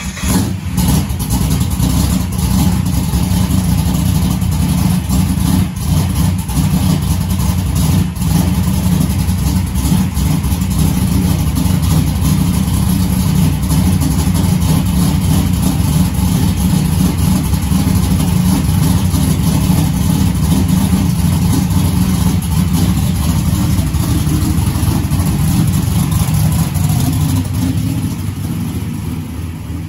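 A car engine running steadily with a deep exhaust note, fading out near the end.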